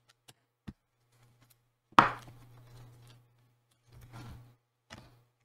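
Small clicks and rustling as fingers work a laptop display ribbon-cable connector and its adhesive tape free from an LCD panel, with one sharp knock about two seconds in.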